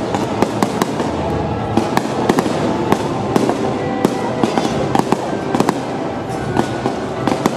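Fireworks going off: a rapid, irregular run of sharp pops and cracks, several a second.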